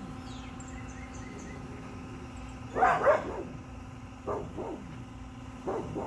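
A dog barking a few times in short calls, loudest a close pair about halfway through, with a steady low hum underneath.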